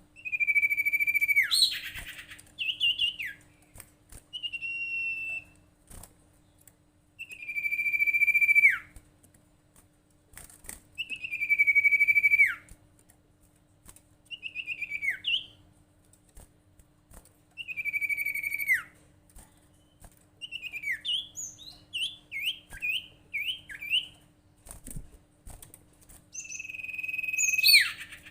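Sirtu bird call: long, loud whistled notes, each held for about a second and ending in a quick downward slur, repeated every three to four seconds. About two-thirds of the way through comes a quick run of short chirps. A faint steady hum runs underneath.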